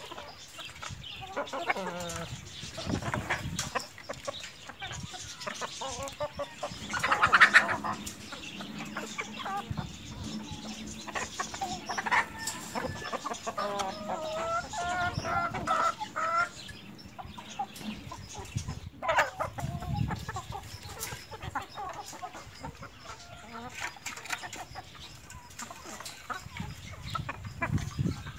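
A flock of chickens clucking and calling as they feed, with a loud sudden outburst from the birds about seven seconds in and a run of wavering calls a few seconds later.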